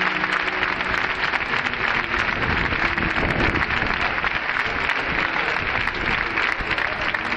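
A large stadium crowd applauding: a dense, steady patter of clapping.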